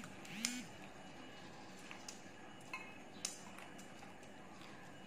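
Two short hummed "mm" sounds from the eater near the start, then a spoon and chopsticks clinking and tapping against a glass bowl several times, one clink ringing briefly.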